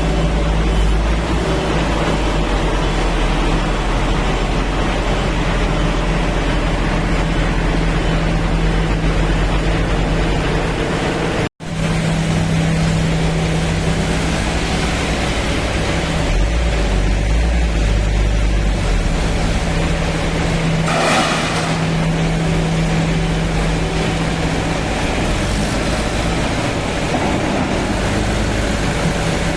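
Kirloskar diesel engine of a JCB 3DX backhoe loader running steadily, its low note shifting as the load changes, with a brief hiss about two-thirds of the way in.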